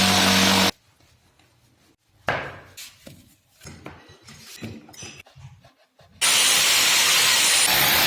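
A power tool running with a steady noisy hum, cut off abruptly under a second in. A few scattered short knocks and scrapes from hand work follow, then a power tool starts suddenly about six seconds in and keeps running.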